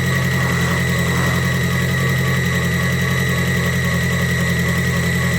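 2002 Volkswagen Beetle's engine idling steadily, freshly started after repair work.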